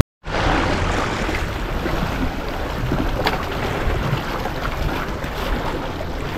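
Sea surf washing and splashing against shoreline rocks, a steady rush with wind on the microphone. It cuts in after a split-second dropout.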